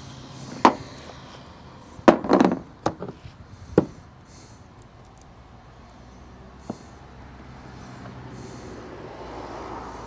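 Hand-tool clicks and snaps as red automotive wire is worked with a wire stripper-crimper. There is one click about a second in, a quick cluster around two seconds, another near four seconds and a lone light tick near seven seconds, over a faint low hum.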